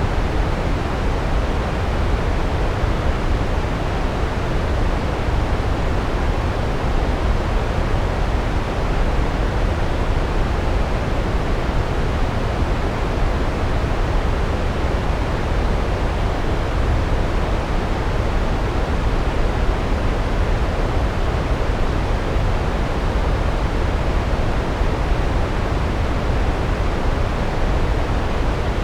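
Large waterfall: water falling onto rocks in a steady, even roar, heaviest in the low end.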